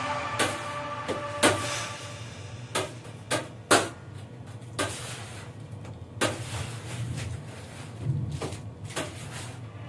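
Music dies away over the first couple of seconds. Then comes a quiet stretch of sparse, irregular soft knocks and clicks, about eight or nine in all, over a low steady hum.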